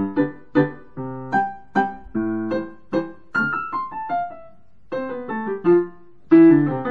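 Kawai CA17 digital piano playing its upright piano voice, a sound slightly narrower than its grand pianos. Chords are struck about twice a second, with a short run of single notes stepping downward about three seconds in, then chords again.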